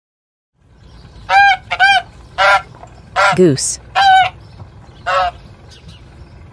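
Goose honking: a run of about seven short, loud honks, one near the middle sliding down low in pitch, over a steady low background noise that begins just before them.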